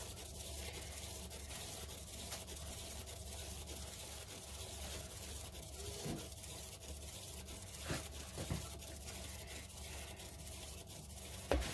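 Turntable spinning a freshly poured acrylic paint tile, a steady low whir with a few faint clicks.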